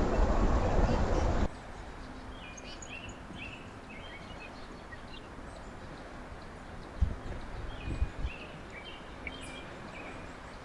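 A loud rush of steady noise that cuts off suddenly about a second and a half in, then small birds chirping in quick series of short high notes, with a couple of dull low thumps partway through.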